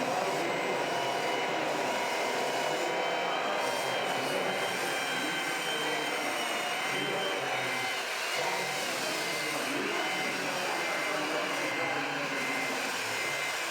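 Small electric motors and gearing whining steadily with slightly wavering pitch, over a background of crowd chatter.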